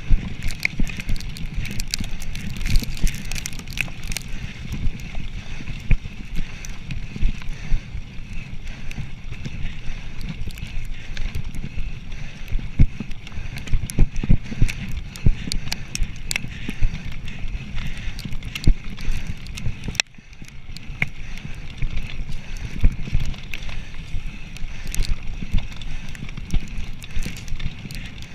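Mountain bike riding fast over a rough dirt trail: a continuous rumble from the tyres and frame, with frequent rattles and clicks from the bike jolting over bumps. The noise drops for a moment about twenty seconds in.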